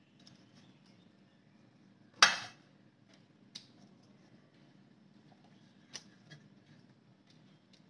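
A sharp metallic clank about two seconds in, with a short ring after it, then a few lighter clicks and knocks. These are kitchen handling sounds as whole sea bass are rubbed and turned in a stainless steel tray.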